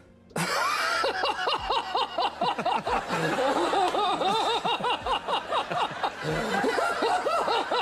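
A group of people laughing and chuckling, a dubbed-in laughter effect that cuts in suddenly about half a second in and keeps going.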